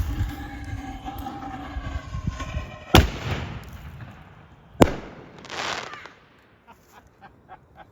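A firework mortar shell fired from an antique cannon barrel: a sharp bang as it launches about three seconds in, then a second sharp bang as the shell bursts about two seconds later, trailing a short rush of noise.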